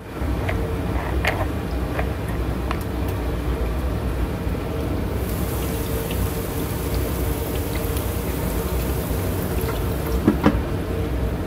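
Diced onion sizzling in hot oil in an electric skillet, with small pops of oil in the first few seconds and a steady low hum underneath. A short clink about ten seconds in as the glass lid is put over the pan.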